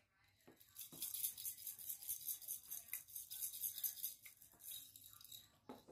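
Small plastic toy sprinkles shaker rattling as it is shaken quickly over a toy ice cream cone. A fast, dense rattle starts about a second in and stops shortly before the end.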